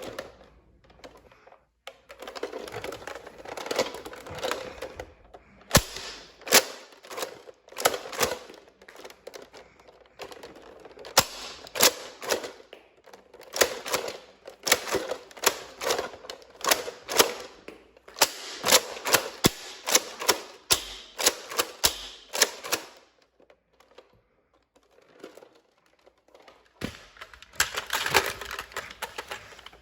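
Nerf blasters being primed and fired over and over: sharp clicks and snaps of their mechanisms, some in quick runs, over a rattling clatter of handling. There is a quiet stretch a little before the end, then another burst.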